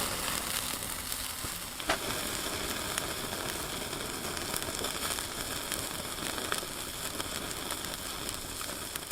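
Cherry blossom trout sizzling as it cooks: a steady sizzle with small crackles, and one sharp click about two seconds in.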